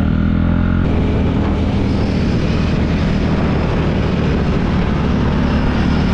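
KTM Duke 390's single-cylinder engine running steadily under way, with wind rushing over the microphone; the wind noise picks up about a second in.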